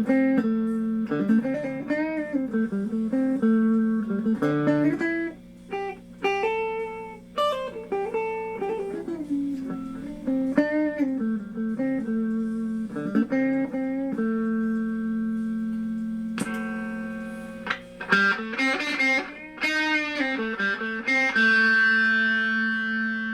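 Hofner 459 VTZ electric guitar played through an amplifier with its built-in treble boost and fuzz switched on: single-note lines with string bends, a long sustained note midway, and a chord left ringing near the end. The guitar is being test-played after repair of its treble boost circuit.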